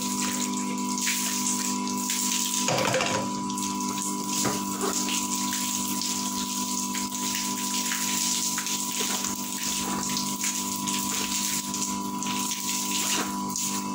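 Electric soybean grinder running with a steady motor hum as it grinds soaked soybeans with water into soy milk, with the sound of liquid running through it and a few light knocks.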